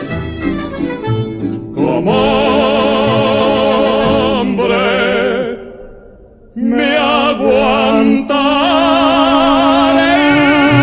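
Male voices singing a Mexican romantic song in a full operatic style over strings, drawing out long notes with wide vibrato. The music drops away briefly about six seconds in, then the voices come back and hold one long note from about eight seconds in.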